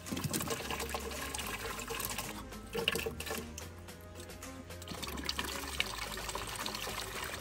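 Water pouring from a plastic watering can down a PVC pipe, splashing into the reservoir as it fills, with background music under it.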